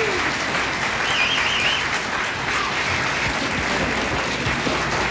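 Audience applauding at the end of a jazz number, with a short, high, wavering whistle about a second in.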